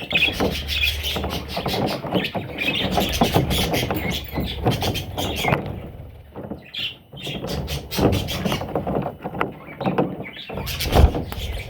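Budgerigars chirping and chattering in a busy, continuous warble broken by clicks, with a thump near the end.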